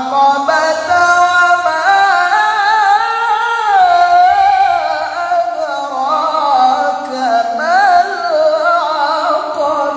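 A male qari reciting the Qur'an in the melodic tilawah style. He holds long sustained notes, ornamented with quick wavers and slow glides up and down in pitch.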